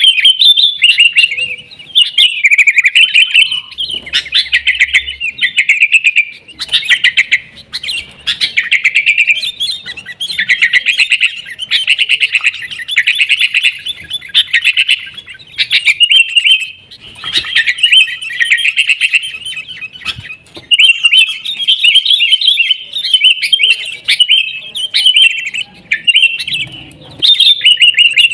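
Sooty-headed bulbuls chattering and calling almost without pause in fast, agitated runs of notes, the noisy calls of birds squaring up to fight.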